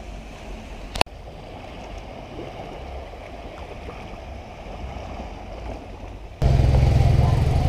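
Small waves lapping at the shore, with a low rumble of wind on the microphone and a single sharp click about a second in. Near the end the sound cuts abruptly to a loud engine running close by.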